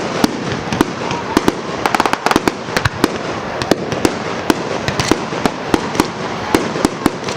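Fireworks display going off: a rapid, irregular string of sharp bangs, several a second, over continuous crackling.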